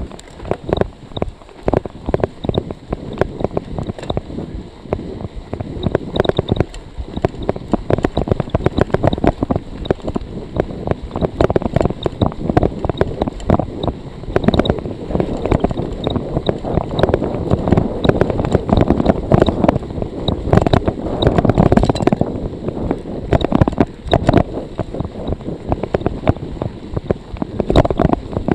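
Wind buffeting an action-camera microphone while a cyclocross bicycle rolls over snow, with tyre noise and dense, irregular rattling and clicking from the bike. The wind noise grows somewhat louder about halfway through.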